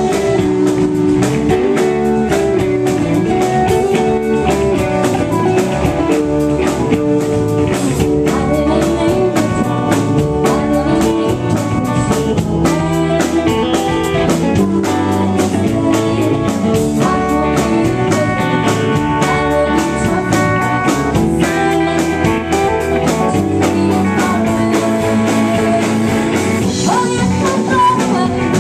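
Rock band playing live: electric guitars, bass guitar and drum kit, running steadily with no break.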